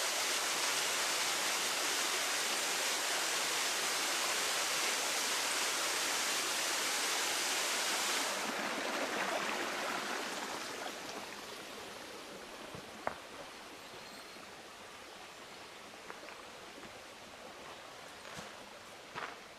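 Rushing water, a loud steady hiss that drops away suddenly about eight seconds in and then keeps fading. In the second half, a few scattered footsteps on the trail.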